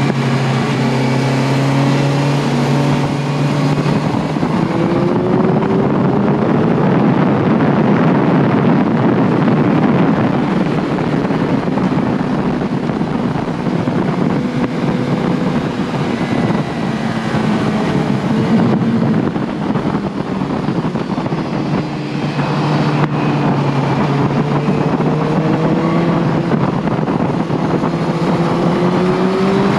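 Sport motorcycle engine at full track pace, its note rising and falling as the rider accelerates, shifts and brakes, with heavy wind rush on the onboard microphone that dominates the middle of the stretch.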